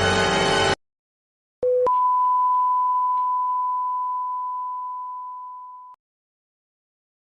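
Electronic beep: a short lower beep, then one long steady higher beep that slowly fades away over about four seconds. Music cuts off suddenly before it.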